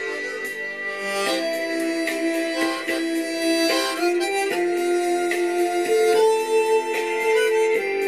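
Harmonica playing a slow trot-song melody of held notes, several notes sounding together, changing pitch about once a second.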